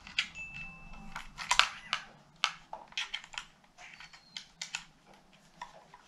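Irregular plastic clicks and taps from handling the DJI Mavic Mini 2 remote controller and its phone cable adapters, as connectors are tried against the controller.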